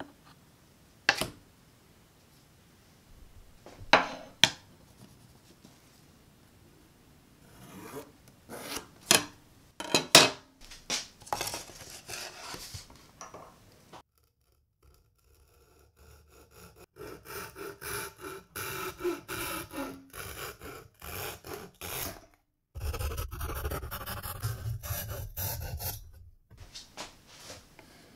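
Several sharp knocks and taps of a knife and wood being handled on a wooden surface, then, from about halfway, quick repeated rasping strokes of a hand tool working a thin wooden board clamped in a bench vise, heavier in the last few seconds of the strokes.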